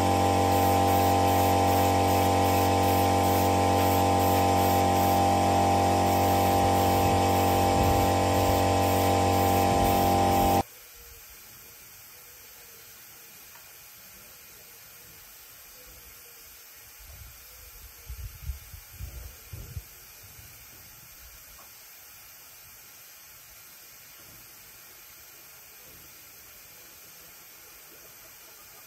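Compressed-air paint spray gun spraying, a loud steady hiss over a steady motor hum, cutting off abruptly about ten seconds in. After that only a faint steady hiss, with a few light knocks of small parts being handled around the middle.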